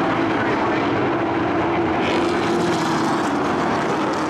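A field of race trucks' engines running together around an oval track: a steady, loud drone with a swell about two seconds in as trucks pass.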